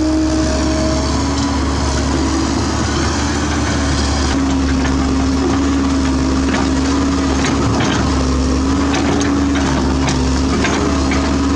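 Komatsu PC130F excavator running steadily under load with a held, slightly wavering tone, while its bucket digs out a tree stump. From about four seconds in, a string of short sharp cracks and snaps as roots and wood break.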